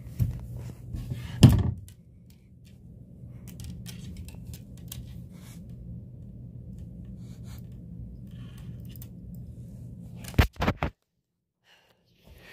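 A sharp knock about a second and a half in, then a faint steady low hum. A quick cluster of clicks comes near the end and is followed by a second or so of dead silence.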